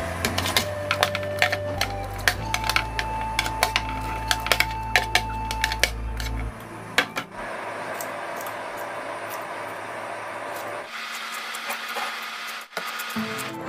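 Cooking sounds as sliced onion, leek and kimchi go into a pot of broth: a quick run of sharp clicks and taps from a wooden spoon and the ingredients, then a steadier hiss with a few taps.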